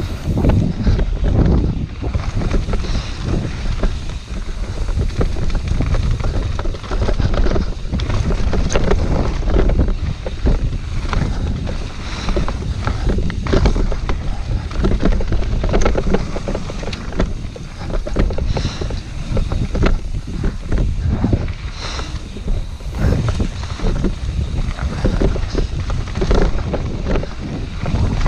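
Mountain bike descending a dirt singletrack at speed: wind buffeting the action camera's microphone over the tyres rumbling on loose gravel, with frequent knocks and rattles from the bike as it goes over bumps.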